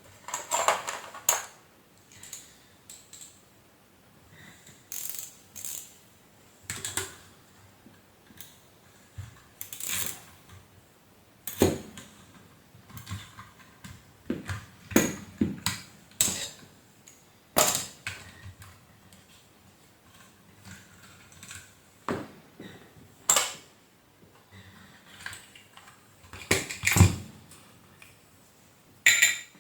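Irregular clicks, taps and knocks of tools and small metal parts being handled while a vacuum cleaner motor is taken apart, a few of them loud and sharp, with short quiet gaps between.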